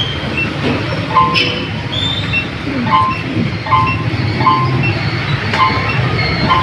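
Steady low background traffic rumble, with short two-tone beeps repeating about six times, roughly once a second.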